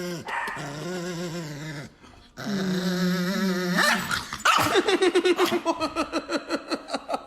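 A dog vocalising: long, wavering growly whines, then from about halfway a rapid string of short yips, about six a second.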